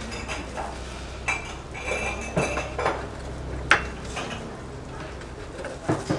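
Kitchen knife chopping cooked goat meat on a wooden cutting board: irregular knocks of the blade against the board, the sharpest a little past the middle, with a few brief clinks.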